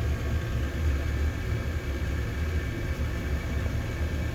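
Oil boiler converted to a gas burner, running: a steady low rumble from the burner and its combustion-air blower, with a faint steady higher hum.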